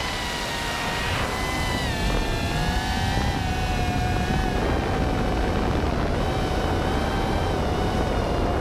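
5-inch FPV quadcopter's brushless motors and propellers whining, heard from its onboard camera over wind rumble on the microphone. The pitch shifts a little early on and about two seconds in, then holds steady. The motors are labouring under a heavy 12000 mAh 6S battery.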